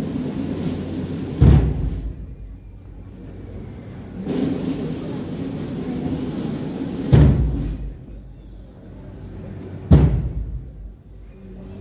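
Procession band music: sustained brass chords, each phrase closing on a heavy bass drum and cymbal strike. There are three strikes, the last one alone after a quieter gap.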